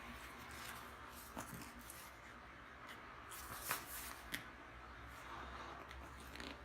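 Packaging being handled and opened, rustling and crinkling with a few sharper crackles, the loudest a little past halfway.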